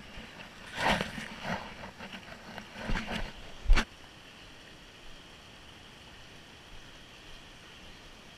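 Rustling and scraping as a handheld camera is moved against rock during a boulder scramble, ending in one sharp knock just before four seconds in; after that, the steady rush of a shallow stream flowing over rocks.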